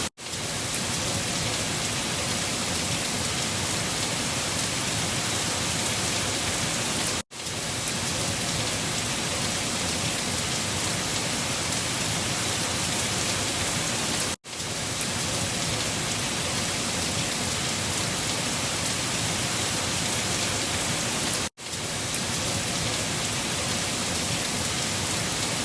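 Steady rain falling, played as a looped recording that cuts out briefly about every seven seconds before starting again.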